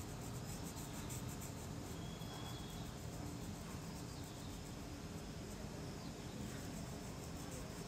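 Faint scratching of a felt-tip marker colouring in on paper, over a steady background hiss.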